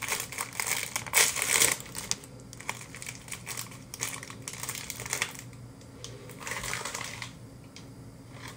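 Clear plastic wrapper crinkling as it is pulled open by hand to unwrap a small heart-shaped cake. It comes in several rustling bursts, the loudest a little after a second in.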